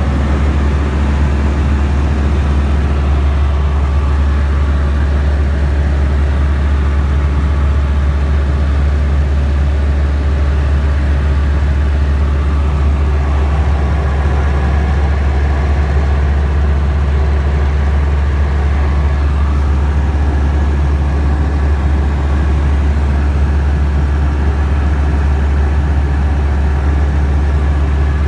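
Tecnam Sierra light aircraft's Rotax 912 flat-four engine and propeller running steadily: a constant, loud low drone with no change in pitch.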